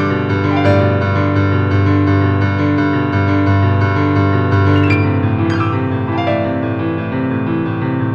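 Piano music with held chords.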